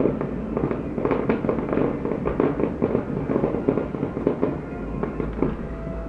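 Fireworks going off in a rapid barrage of bangs and crackles, thinning out near the end, with music playing along.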